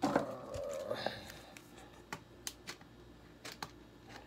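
Hand-handling noise: a brief rustle at the start, then scattered light clicks and taps of small plastic parts being handled, about seven sharp ticks spread unevenly through the rest.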